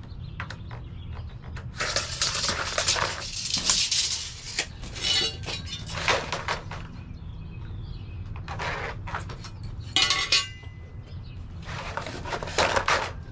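Long white siding panels and trim clattering, rattling and scraping as they are handled and shifted on the brick pavers, in several separate bursts with brief ringing, over a low steady rumble.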